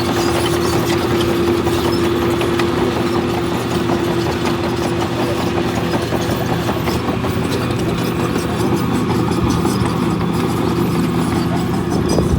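Heavy diesel engine of earthmoving machinery running steadily with a continuous clatter. A steady whine sounds over it and fades after about four seconds.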